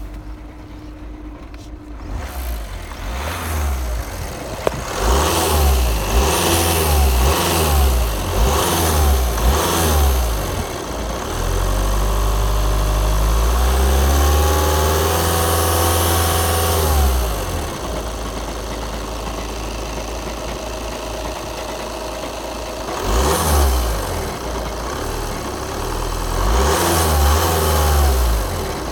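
Volkswagen Passat 2.0 TDI four-cylinder diesel revved several times in quick blips, then held up for a few seconds and let fall back to idle, then revved twice more near the end. The transmission-area noise that goes with it is, in the owner's view, usually a worn dual-mass flywheel.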